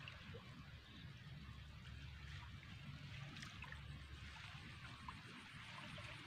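Faint trickling and dripping of water running off a fishing drag net as it is hauled out of a pond, with a low steady rumble underneath.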